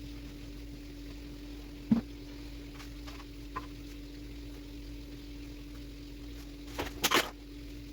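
Household objects being handled on a kitchen counter: one sharp knock about two seconds in and a short clatter near the end, over a steady low hum.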